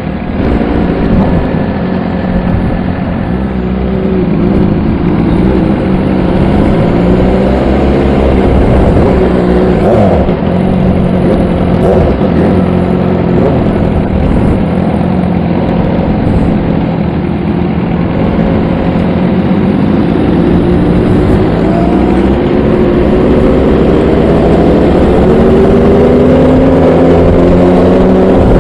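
Superbike engine running at low speed in traffic, its pitch wavering with the throttle and climbing near the end, over a steady low rumble.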